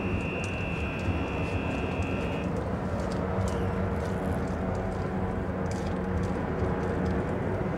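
A high electronic beep held for about two and a half seconds and then stopping, over a steady low rumble with a engine-like hum and scattered clicks.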